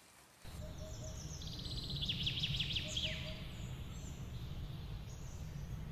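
A bird's rapid trill of high chirps, falling in pitch, heard over a steady low rumble of background noise that starts abruptly just after the beginning.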